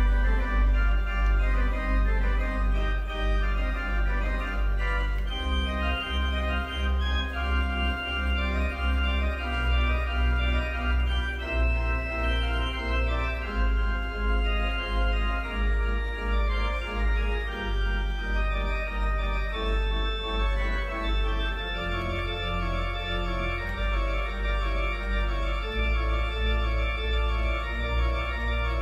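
Organ postlude after the benediction: slow, sustained chords over long held bass notes that change every few seconds.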